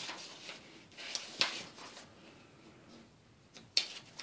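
Sheets of drawing paper being leafed through by hand: soft rustling with a few sharp paper snaps, the loudest near the end.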